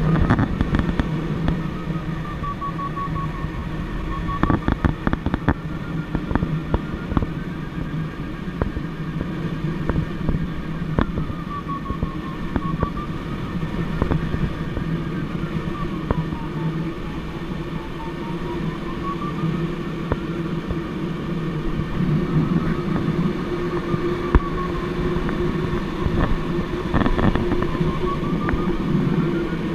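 Glider cockpit noise: steady rushing airflow with a low drone and scattered buffeting crackles. Over it a glider variometer's electronic tone slides slowly up and down in pitch as the lift changes.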